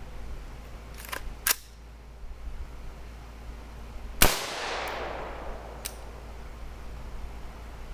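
A single shot from an AR-15 rifle firing steel-cased .223 ammunition, about four seconds in, with a long echo trailing off after it. A few faint clicks come before and after the shot.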